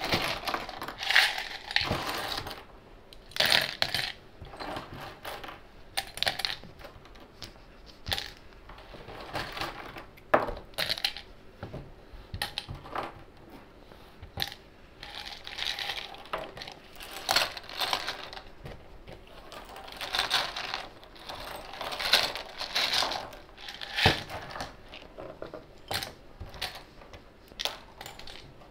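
Loose LEGO pieces clattering as they are swept off a tabletop and dropped by hand into a plastic cup: irregular small clicks and rattles, with a few sharper clicks.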